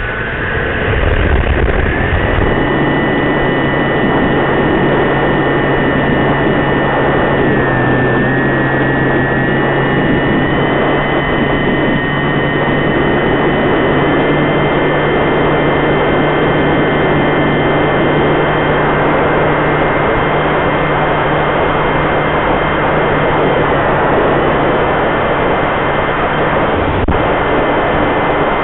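Motor and pusher propeller of a home-built foam twin-boom pusher RC plane in flight, heard from on board with heavy wind rush. The whine rises in pitch over the first two seconds as the motor speeds up, then holds steady, with brief dips about a quarter of the way in and near the end.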